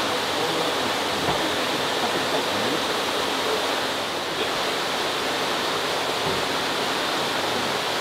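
Steady rush of running water, as in the water-fed koi holding tanks.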